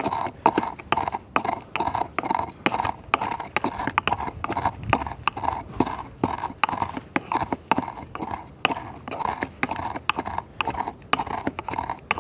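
Pestle grinding cumin seeds with a pinch of salt in a mortar: steady crunching, scraping strokes, about two a second.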